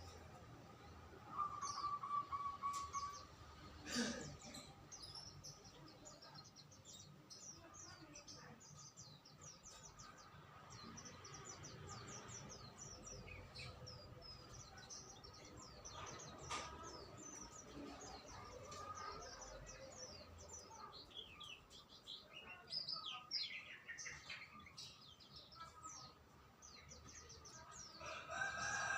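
Songbirds chirping and twittering, many short high notes overlapping and busiest near the end. A brief steady trill comes about a second and a half in, and a single sharp knock about four seconds in.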